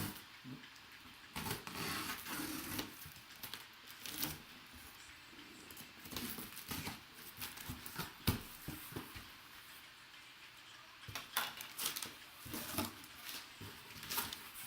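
A cardboard box being handled and opened: irregular scraping, tearing and tapping of cardboard.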